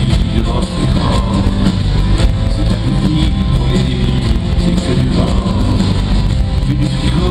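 A live rock band playing a song in an arena, guitars over drums and bass, with a man's voice singing at the microphone.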